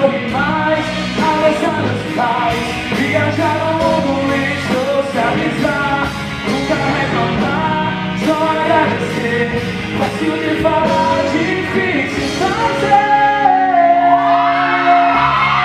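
Live rock-pop band playing a song on electric and acoustic guitars, electric bass, keyboard and drum kit, with a melodic lead line over the band.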